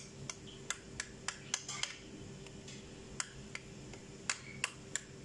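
Metal spoon clinking against a ceramic bowl while stirring thick yogurt dressing: about a dozen light, irregular clicks.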